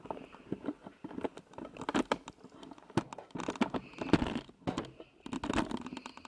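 Camera handling noise: the microphone rubbing and knocking against clothing, giving irregular rustles and sharp clicks.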